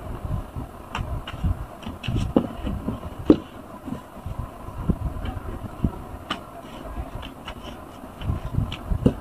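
Large foam sponges squeezed and pressed by gloved hands in a tub of thick detergent suds: wet squelches and crackling foam in irregular pulses, quieter for a while past the middle and picking up again near the end.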